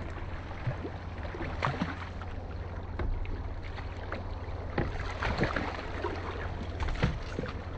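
Landing net sloshing and splashing in the water beside the boat while a hooked salmon is fumbled into it, with irregular short splashes and knocks. The splashes come more often about five seconds in. A steady low hum of the boat's motor runs underneath.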